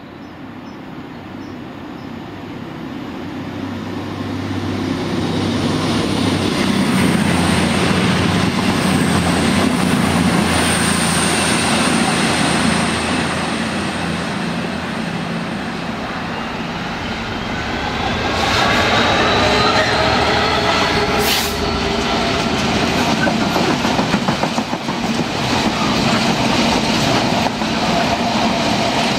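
A Class 66 diesel locomotive draws closer and passes with a freight train, its engine sound building over the first several seconds. About two-thirds through, a CrossCountry Voyager diesel unit passes on the other track with a rising whine and a brief sharp click. The train's wagons then run by with a rhythmic clatter of wheels on the rails.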